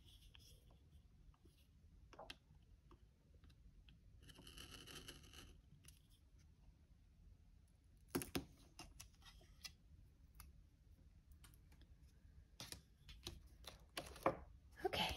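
Faint pen-on-paper writing and paper handling: a short scratchy stretch about four seconds in and light scattered taps, then louder clicks and rustles about eight seconds in and near the end as the spiral planner is handled and shifted.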